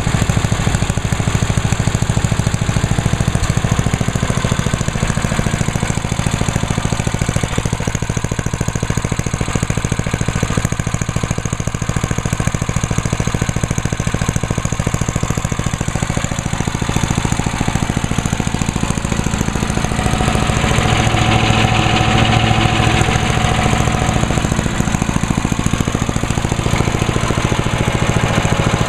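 The 10 hp Tecumseh engine of a 1998 Yard Machines by MTD chipper/shredder running steadily just after a cold start. It grows a little louder for a few seconds about twenty seconds in.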